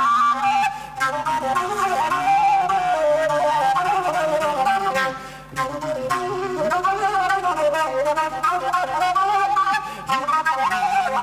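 Long wooden folk flute (furulya) playing an ornamented Csángó folk melody, with brief breath pauses about a second in and about halfway through.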